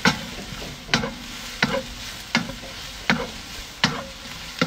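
Sliced onions and carrots sizzling in a wok, stirred with a wooden spatula that scrapes and knocks against the pan about every three-quarters of a second, about seven strokes over the steady sizzle.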